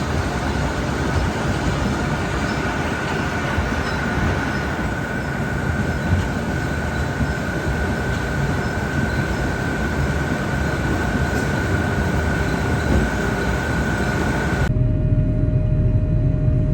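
Trailed Grimme potato harvester and tractor at work lifting potatoes: a steady mechanical clatter and rumble with a constant high whine. Near the end it cuts abruptly to a lower, heavier engine rumble.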